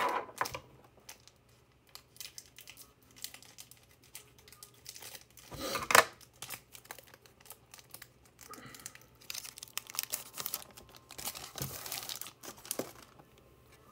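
Trading-card pack wrapper being torn open and crinkled by hand: scattered crackles, a sharp loud one about six seconds in, and a busier stretch of crinkling later on.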